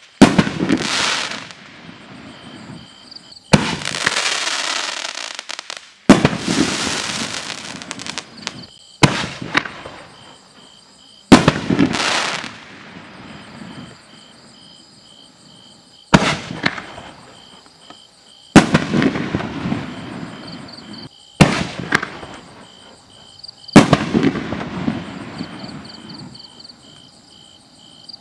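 Dominator DMP345 '5 inch Fancy Tails to Break' 1.4G consumer firework cake firing: about nine sharp bangs a few seconds apart, each shell break followed by a couple of seconds of crackling that dies away.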